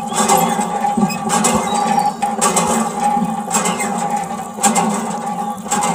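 A small water pump running steadily, with a sharp pulse about once a second, and its stream of water splashing onto a toy.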